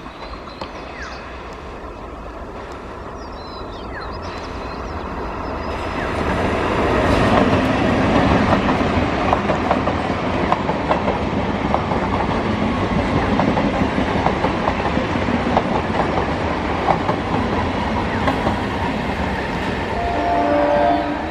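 Electric multiple unit (EMU) suburban train approaching and running past, the noise building for several seconds into a steady run of wheels clattering over rail joints. A brief horn sounds near the end. Birds chirp faintly before the train arrives.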